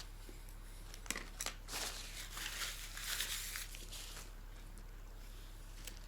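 Plastic food packaging being handled: two sharp clicks a little after a second in, then about two and a half seconds of crinkling and rustling.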